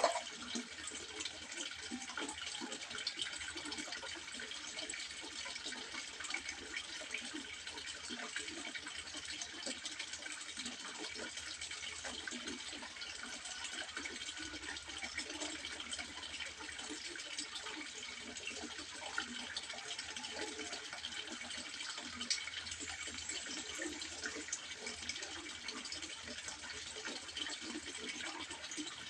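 Water trickling and splashing steadily into a fish pond, a continuous patter of small splashes.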